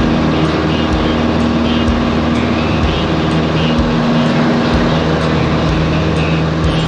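Light single-engine propeller plane's piston engine running steadily with propeller noise, heard inside the cockpit.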